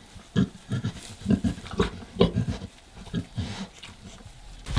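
Sow grunting during farrowing: a run of short, low grunts, about three a second, that dies away near the end.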